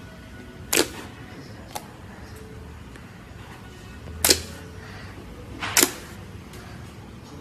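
Clear slime being worked by hand, popping with three short, sharp snaps and a fainter click between the first two; the last two snaps come about a second and a half apart.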